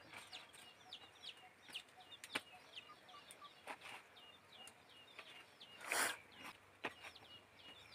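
Faint, high bird cheeping repeated steadily, two or three calls a second, with a few light knocks and a short rustle of leaves being handled about six seconds in.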